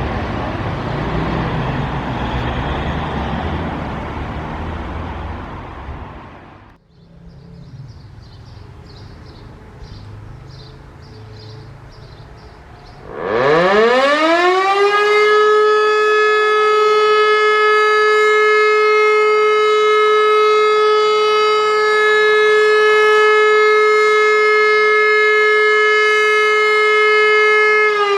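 L141 electric civil-defence siren on a test run: it spins up about halfway through with a steep rising howl, then holds one steady, loud tone rich in overtones. Before it, a rushing noise for the first several seconds cuts off suddenly, leaving a quieter background.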